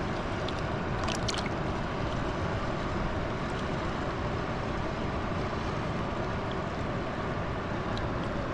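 River water rushing steadily, with a few sharp clicks about a second in.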